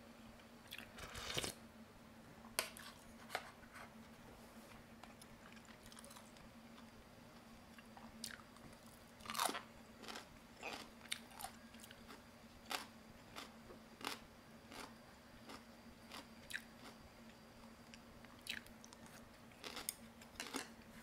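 A person chewing and eating a mouthful of cabbage roll, with short, sharp mouth clicks and smacks at irregular intervals over a faint steady hum.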